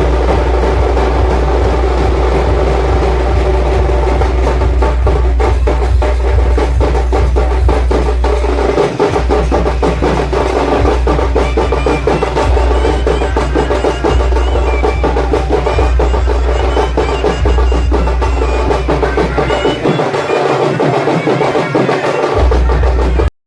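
Loud DJ sound-system music with a heavy, booming bass and fast, dense drum beats. The bass drops out for a moment about nine seconds in, and again for about two seconds near the end.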